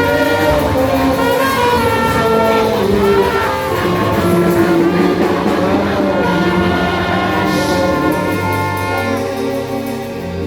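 Music with brass instruments playing sustained, stepping chords.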